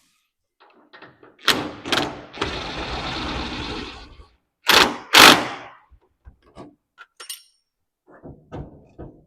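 Heavy metal knocks and thuds from work on an ear corn picker's chain adjuster: two knocks, then a steady rasping scrape lasting about two seconds, then two louder knocks about half a second apart, then a few light clicks.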